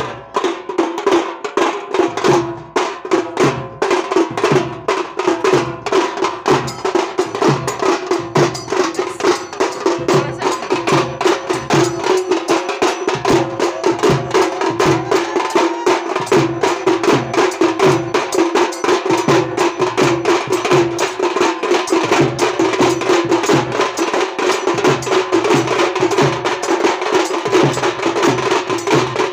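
A group of tasha drums, shallow neck-hung drums, beaten with thin sticks in a fast, dense rolling rhythm, with a deeper beat about twice a second underneath.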